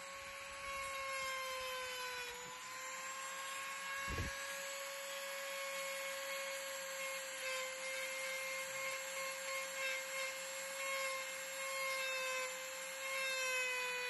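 Ryobi corded rotary tool running steadily with a whine, its burr grinding into the wood of a hiking stick. The pitch dips briefly about two seconds in and again near the end as the bit bites in under load.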